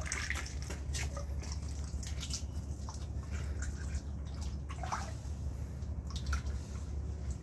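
Clear epoxy resin trickling and dripping as it is poured from a mixing container onto the bar top, over a steady low hum.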